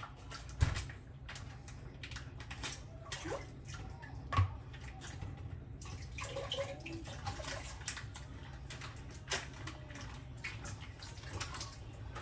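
Kitchen sink sounds: water splashing and dishes and utensils clinking, with two sharper knocks, about half a second in and about four seconds in, over a steady low hum.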